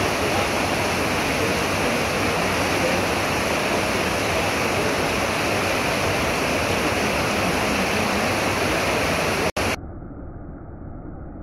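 Floodwater rushing down a stone-lined reservoir overflow channel: a loud, steady rush of churning white water. Near the end it cuts off abruptly, leaving a much quieter, muffled rumble.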